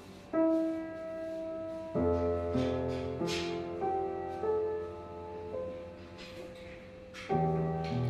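Lester upright piano played slowly: held notes and chords, with low bass notes coming in about two seconds in and a new chord struck near the end.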